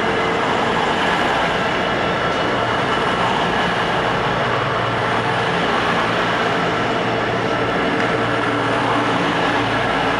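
Colas Rail Class 66 diesel-electric locomotive's two-stroke V12 diesel engine running steadily as the locomotive stands at the platform. A steady low engine note, with steady higher whining tones above it.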